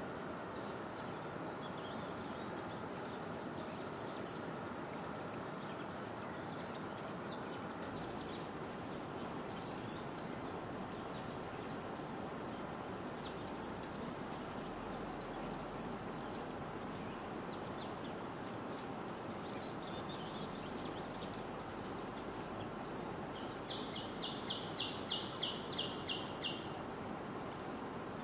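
Steady rush of flowing river water with scattered bird chirps. Near the end a bird repeats one chirping note about eight times in quick succession.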